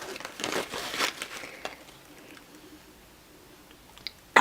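Brief crinkling and clicking of a snack pouch being handled during the first second and a half, then quiet with one small click near the end.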